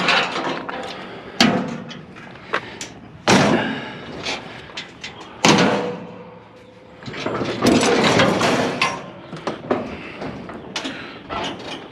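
Junk being pulled and shifted by hand in a scrap pile: a string of irregular knocks, clanks and thumps, the loudest about a second and a half, three and a half and five and a half seconds in, one followed by a brief ring.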